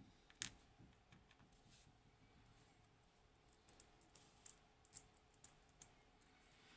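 Faint, scattered clicks and taps of small metal lock parts being handled as an Assa Desmo cylinder is taken apart. There is one sharper click about half a second in and a run of light ticks a few seconds later.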